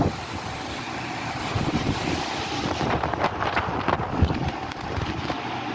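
Wind buffeting and handling noise on a phone microphone, over a low steady rumble.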